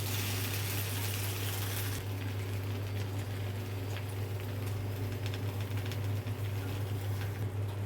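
Okra sizzling in a frying pan, the hiss dropping away sharply about two seconds in and leaving faint scattered clicks, over a steady low hum.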